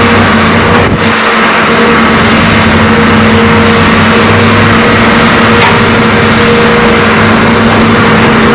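Hitachi ZAXIS hydraulic excavator's diesel engine running steadily under working load as the machine swings and digs, a constant loud drone.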